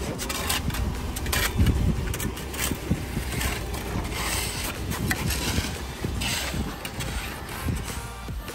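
Shovels and steel hand tools scraping and knocking in wet concrete as kerbing is laid in a timber form, over a low steady rumble.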